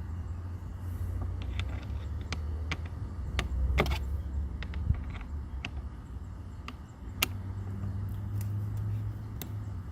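Scattered sharp clicks and snaps of plastic dashboard trim being worked loose by hand, with a quick cluster about four seconds in and one louder snap a few seconds later, over a low handling rumble.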